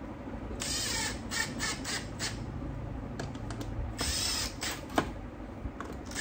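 Hands working on a small part: short bursts of scraping and rustling, with a single sharp click about five seconds in.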